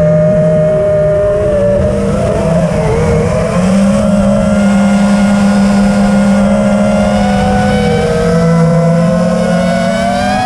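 Brushless motors and props of a 5-inch FPV racing quadcopter (iFlight Xing-E 2207 1800kv motors, Nazgul 5043 props) whining at full flight. Their pitch sags and climbs as the throttle changes, with a rough wind rumble underneath from air rushing over the onboard camera's microphone.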